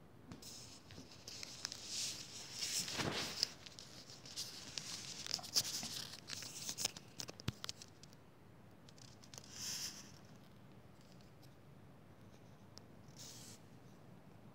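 Rustling and scraping handling noise from the recording phone, with scattered sharp clicks, through the first half, then two short rustles.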